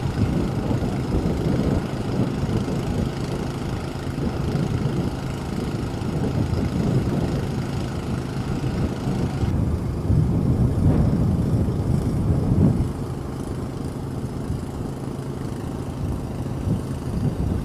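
A vehicle engine running steadily at idle, a low rumble. A higher hiss above it drops away about halfway through.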